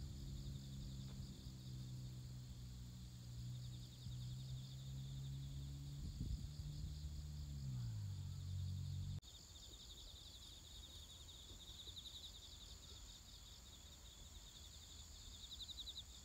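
Insects trilling in fast, steady, high-pitched pulses. Underneath, a low drone dips in pitch and stops abruptly about nine seconds in.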